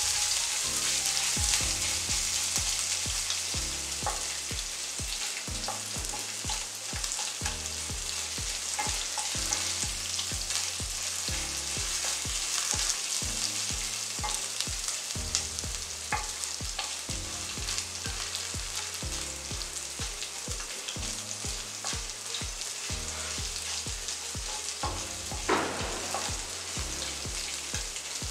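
Ginger-garlic paste with dried red chillies and curry leaves sizzling steadily in hot oil in a non-stick kadai, stirred with a wooden spatula that now and then scrapes or taps the pan, most sharply near the end.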